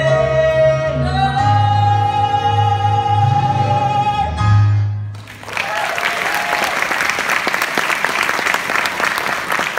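Singers end a musical-theatre song on a long held note over the accompaniment, which stops about five seconds in. The audience then breaks into applause.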